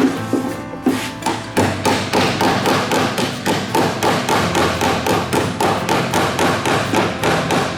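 Rapid, evenly spaced knocks, about three a second, with faint steady tones behind them.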